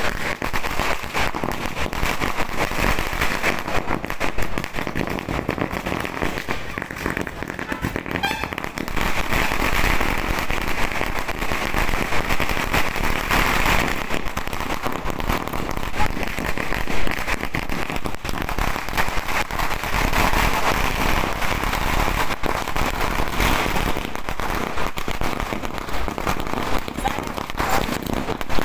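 A long string of firecrackers going off in rapid, unbroken crackling: dense sharp pops packed close together without a pause.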